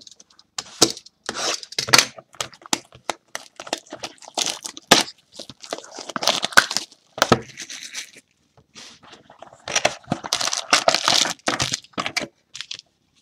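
Wrapping being torn and crinkled off a sealed cardboard box of football trading cards as the box is pulled open: a run of sharp, irregular crackles and rips, densest about halfway through and again near the end.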